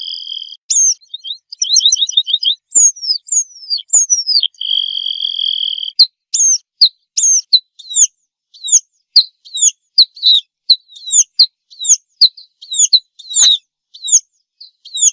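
Red-throated pipit calling: thin, high downslurred notes, a quick trill of about six notes and two long held whistles, then from about six seconds in a steady series of short downslurred calls, two to three a second.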